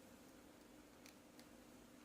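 Near silence: a faint steady hum with two faint ticks about a second in, a third of a second apart.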